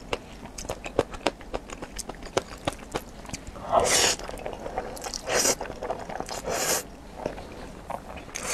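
Close-up eating sounds of noodles: wet mouth clicks and chewing throughout, with a loud slurp of noodles about four seconds in and two shorter slurps a little after.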